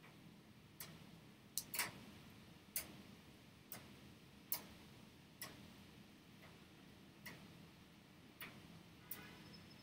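Faint, sharp clicks, about ten of them at uneven intervals of roughly a second, from a plastic pry tool catching and snapping against the glued-down front-camera cable bracket inside an iPhone 6.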